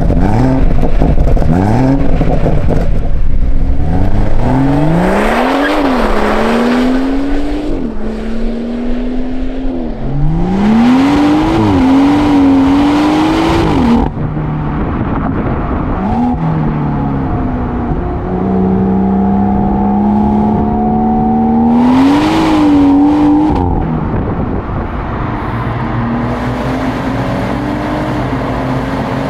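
BMW M140i's turbocharged 3.0-litre straight-six accelerating hard through the gears: the engine note climbs, then drops sharply at each upshift, over several short runs cut one after another.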